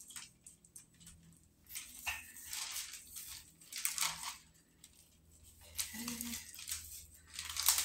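Parchment paper crinkling and rustling in repeated short bursts as a wooden rolling pin is pushed back and forth over pizza dough lying on it.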